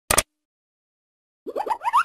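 A single short tap-click, then after a second's silence a fast run of short, squeaky, rising chirps that climb steadily in pitch: cartoon sound effects.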